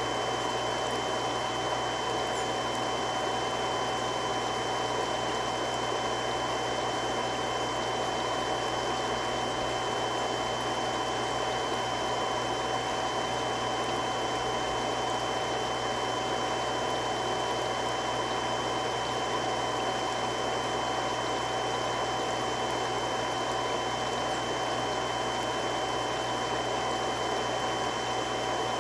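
Three-stage irrigation water pump running steadily: an even rushing noise with steady whining tones that hold their pitch throughout.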